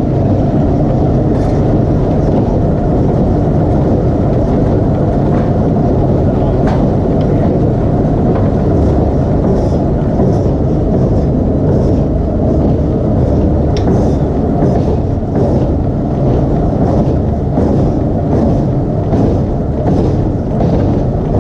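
Steady, loud, low rumble of forge-shop machinery, with scattered light knocks that come more often in the second half.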